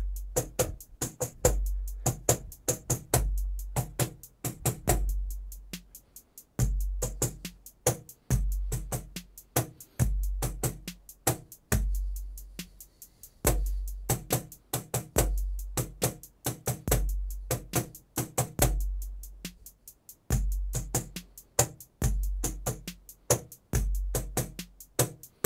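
A hand-drum groove: one basic African djembe pattern played over and over. A deep bass beat comes about every 1.7 seconds, with quick sharp slaps and tones in between.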